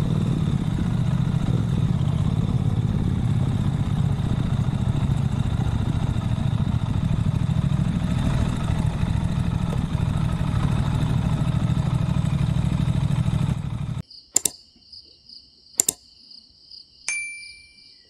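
Triumph Speed Twin's parallel-twin engine running as the motorcycle rides slowly along a mud track, a steady low rumble. It cuts off suddenly about 14 seconds in, leaving crickets chirping, two sharp clicks and a short high chirp.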